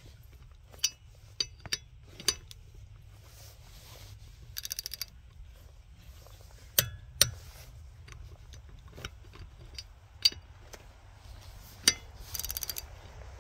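A click-type torque wrench with a socket on an extension, ratcheting in short bursts as lug nuts are run down in a crisscross pattern. Sharp single clicks come through throughout, as the wrench breaks over at its 100 ft-lb setting.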